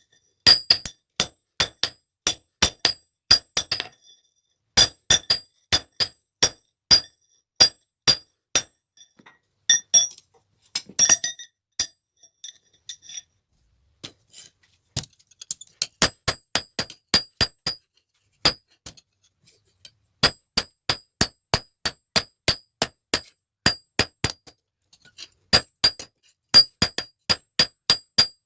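Blacksmith's hand hammer striking steel on an anvil while forging a pair of tongs: quick runs of ringing blows, about three a second, broken by short pauses.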